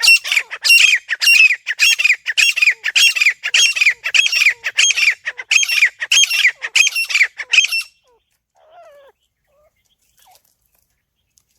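Francolin (teetar) calling: a loud, fast series of repeated high-pitched call notes, about two a second, that stops about eight seconds in.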